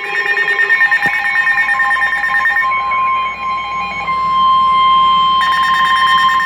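Weather radio receiver alarm: a rapidly pulsing electronic alert tone, then a steady single warning tone near 1 kHz, the NOAA Weather Radio 1050 Hz alarm tone that signals a warning. The pulsing alert comes back a little over five seconds in, and there is a faint click about a second in.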